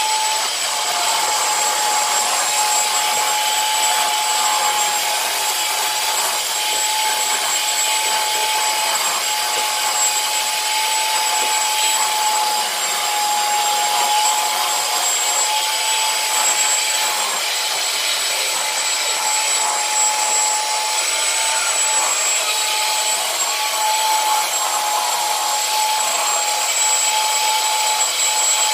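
Commercial HEPA vacuum cleaner running steadily on carpet: a constant rush of air under a steady high motor whine.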